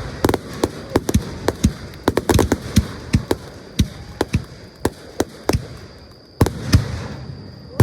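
Fireworks going off: a rapid irregular series of sharp bangs and crackles, several a second, with a loud bang about six and a half seconds in after a brief lull.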